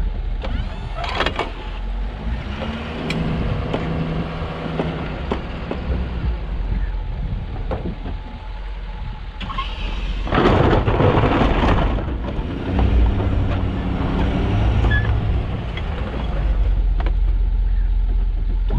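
Snowplow truck's engine running with a steady low rumble, with a loud rush of noise for about two seconds near the middle.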